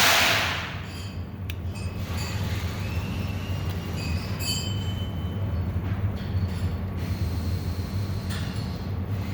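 A steady low mechanical hum, with a loud burst of hiss in the first half second and a few faint ticks.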